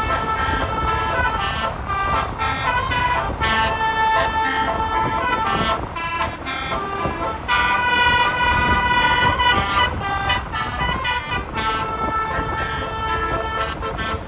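A bus's 36-trumpet 'telolet' air horn playing a tune: phrases of short horn notes stepping up and down in pitch, with brief breaks between phrases.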